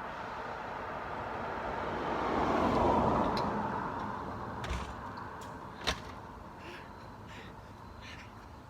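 A passing vehicle, its rushing noise swelling to a peak about three seconds in and then fading away, followed by a few short clicks.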